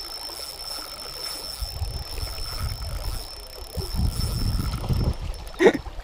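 Hooked carp thrashing and splashing at the water's surface while being played on a spinning rod, with water noise that grows louder about four seconds in. A short squeal rising and falling in pitch cuts in near the end.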